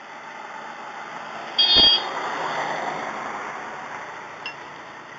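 A road vehicle passes close by, its noise swelling, then fading over several seconds. At its loudest, about a second and a half in, there is a brief high squeal and a thump.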